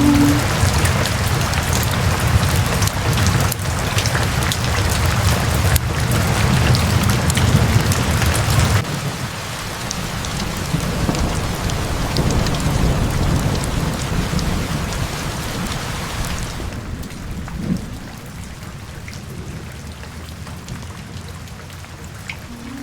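Steady rain with a low rumble of thunder underneath that stops about nine seconds in. The rain then grows gradually softer toward the end.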